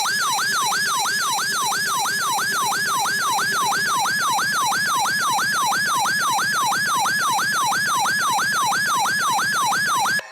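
Electronic siren alarm from a RadioShack 12-991 weather alert radio, a fast falling yelp repeating about three times a second, sounding for an incoming tornado warning. It stops abruptly at the end.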